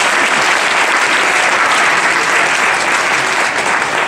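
An audience of schoolchildren and adults applauding, loud and steady.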